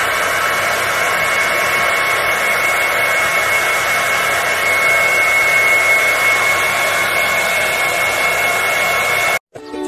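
Handheld hair dryer blowing steadily, a steady high whine over the rush of air; it cuts off suddenly near the end.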